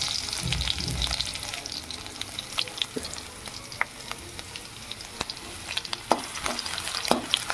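Chopped garlic sizzling in hot oil in a kadhai. A steady high hiss eases after the first couple of seconds into scattered pops and crackles. Near the end a perforated metal spoon stirs it, with a few sharp clicks against the pan.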